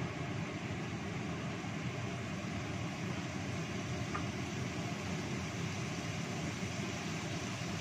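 Kitchen range hood's exhaust fan running with a steady whooshing hum.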